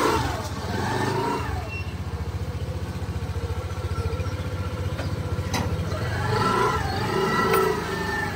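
A TVS motor scooter's small engine running at idle with a steady, even putter as the rider manoeuvres it to pull away.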